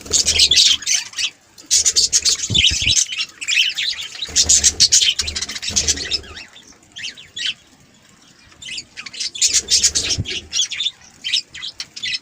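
Budgerigars chattering: repeated bursts of fast, high chirps and warbles, with a short lull about two-thirds of the way through.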